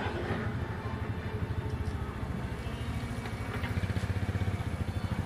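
An engine idling, with a fast, even low chug.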